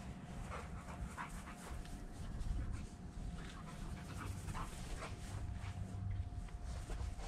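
A dog panting in short repeated breaths, with a faint steady tone in the background.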